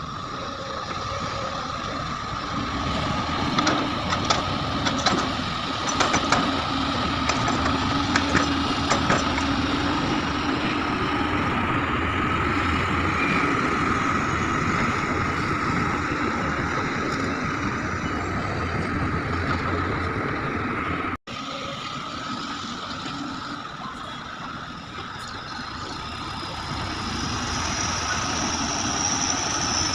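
Heavy diesel machinery of an excavator loading a dump truck, running steadily with a persistent whine. A run of sharp knocks comes in the first third, and the sound drops out for an instant about two-thirds through.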